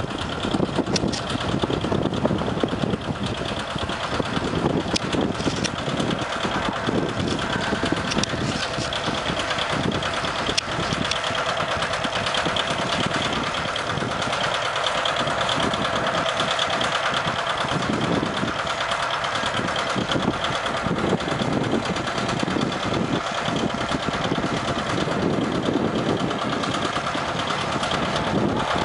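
John Deere 80's two-cylinder diesel engine running steadily under load as the tractor pulls a moldboard plow, breaking sod.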